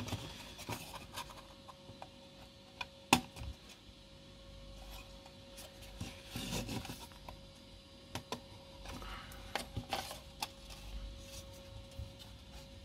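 Thin wooden panels of a cubesat frame being worked together by hand, their tabs friction-fitting into slots: scattered small clicks and knocks of wood on wood with rubbing, and one sharp knock about three seconds in.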